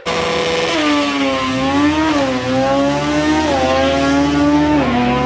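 Car engine running hard at high revs, its pitch dipping and climbing again several times, about every second and a half.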